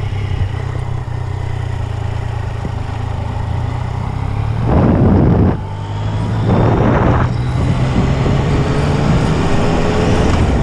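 Motorcycle engine running on the move, with wind rushing past. Two louder surges of engine and wind come about five and seven seconds in, with a short dip between them, and the engine pitch rises near the end as it picks up speed.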